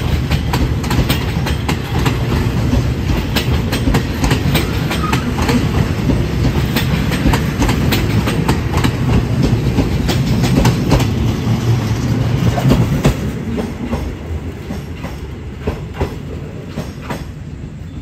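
Express passenger train pulling out, its carriages rolling past with a steady rumble and a rapid clickety-clack of wheels over the rail joints. The sound drops and fades in the last few seconds as the train draws away.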